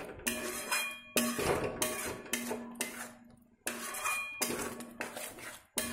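Spatula scraping and knocking against a metal kadai in a string of strokes while stirring thick masala gravy, the pan ringing between strokes. The turmeric and red chilli powder are being mixed into the gravy.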